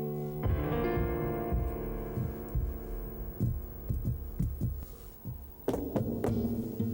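Instrumental music: held low chords over a run of deep pulsing thuds about two a second, then a sharp struck chord about six seconds in.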